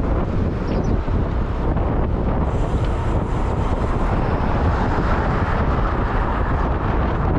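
Wind buffeting the microphone of a rider on the move, a steady rush over the continuous noise of the vehicle and road.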